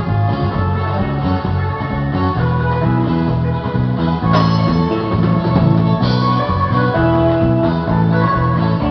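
Live band of electric guitars playing instrumental guitarrada: picked lead melody lines over a steady bass line. A sharp hit rings out about four seconds in.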